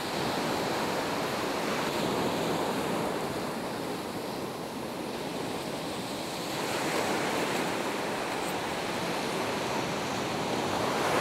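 Ocean surf breaking and washing up a sandy beach, a steady rush that eases a little midway and swells again.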